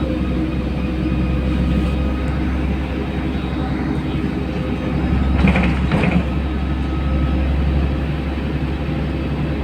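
Cabin noise inside a LiAZ-5292.67 city bus on the move: a steady low engine drone with road noise, and two short knocks a little past halfway.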